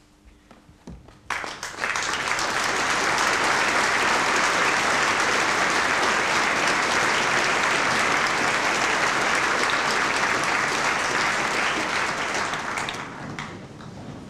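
A large audience applauding. The clapping starts suddenly about a second in, holds steady, and dies away near the end.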